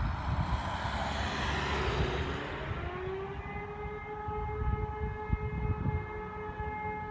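Civil-defence warning siren being tested, winding up: a rushing noise rises in pitch, then a tone glides up and settles into a steady pitch about three seconds in.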